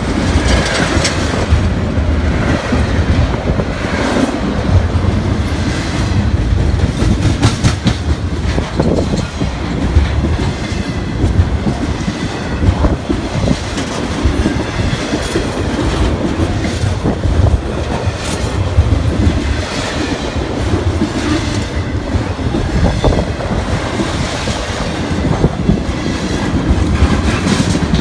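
BNSF intermodal freight train's well cars and trailer flatcars rolling past close by: a steady loud rumble, with wheels clicking over the rail joints throughout.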